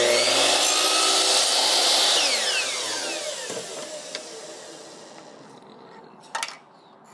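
Electric miter saw cutting through a piece of trim, then switched off, its blade spinning down with a falling whine over a few seconds. A knock near the end as the cut piece is lifted off the saw.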